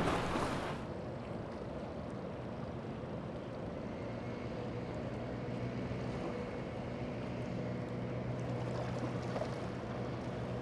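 A rush of water and wind from a boat cutting through chop, ending about a second in. It is followed by a small outboard motor on a sailboat's stern running at a steady speed, a constant even hum.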